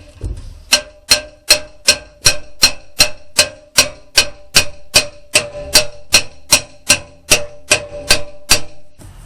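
Steady hammer blows on a steel brake drum, driving it snugly into the hole cut in a lawnmower deck. Each blow rings like metal. There are about twenty strikes at roughly two and a half a second, starting after a short pause and stopping near the end.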